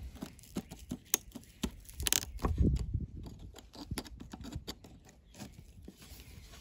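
A steel screwdriver prying and scraping at the rotten stacked-leather washers of an old Estwing hatchet handle: a run of sharp clicks, crunches and scratches, loudest about two seconds in. The leather is too far gone to take the pry and crumbles under the blade.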